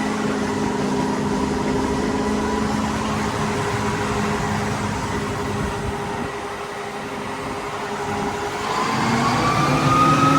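8250 combine running with its threshing machinery engaged, a steady mechanical whine over the engine, here being run after a new rethresher auger bearing and pulley were fitted. About eight and a half seconds in, the whine rises in pitch and grows louder as it speeds up.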